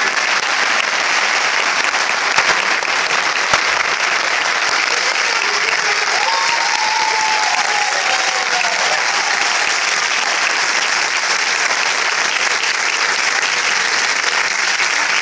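Audience applauding steadily in a hall, with a faint short high call over the clapping about six seconds in.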